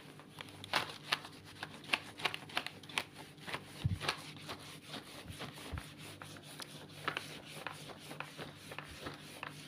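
Paper being rubbed and scratched under a hand, a quick irregular run of short scratchy strokes as a notebook page is handled and written on. Two soft thumps come about four and six seconds in.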